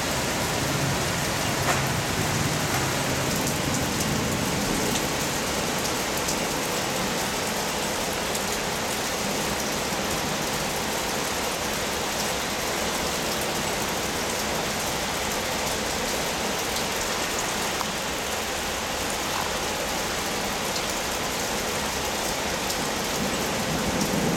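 Rain falling steadily in a storm: a dense, even hiss with scattered small ticks of drops.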